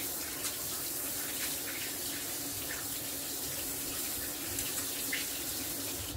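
Kitchen tap running steadily into the sink while hands are rinsed under it. The water cuts off suddenly at the very end.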